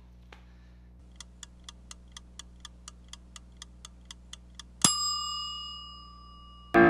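Mechanical timer ticking about four times a second, then its bell dings once and rings out, signalling that the heating time is up. Music with piano starts abruptly at the very end.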